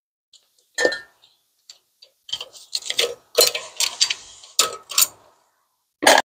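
Screwdriver prying at a rear brake pad and its spring clip in a caliper bracket: a run of metal clicks and scrapes from about one second in to five seconds in, then a sharp metal clack near the end.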